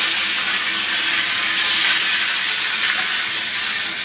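Hornby Dublo three-rail Bo-Bo diesel model locomotive running steadily around metal track, giving a continuous hissing rattle of wheels on rail with a faint hum from its motor. The motor sounds alright: it is running smoothly.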